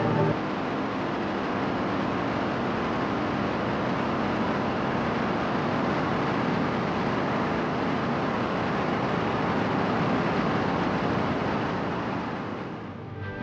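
Large waterfall: a steady rush of heavy falling water that eases off near the end.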